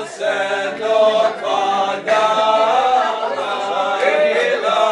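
Voices singing unaccompanied, a slow chant-like song with long held notes.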